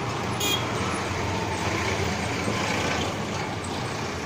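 Steady street traffic noise with a low hum, and a single brief click about half a second in.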